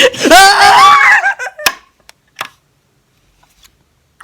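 A person's voice making a high, wavering nonsense vocal noise, a sound made up to be copied, for about a second and a half. A couple of small clicks follow, then it goes quiet.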